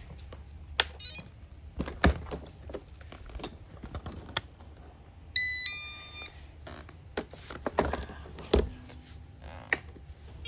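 Robot vacuum giving a short electronic start-up tune of a few stepped beeps about five and a half seconds in. Scattered clicks and knocks and a low steady hum run under it.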